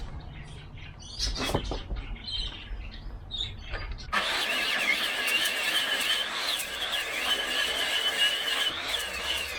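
9-inch angle grinder with a steel cutting disc starting about four seconds in and running with a high, wavering whine as it cuts into the soil surface to break it up. Before it starts there are only a few small knocks.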